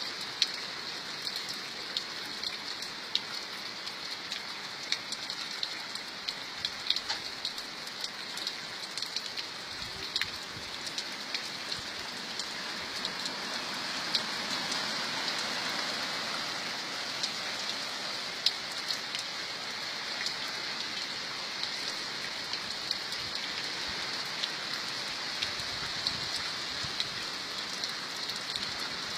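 Steady rain falling, a continuous patter with frequent sharp individual drop hits; it grows slightly louder about halfway through.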